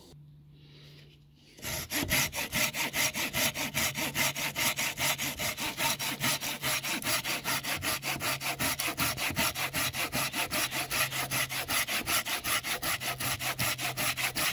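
Silky hand saw cutting through a branch of standing oak, starting about two seconds in with a fast, even rhythm of strokes. The saw cuts on the pull stroke.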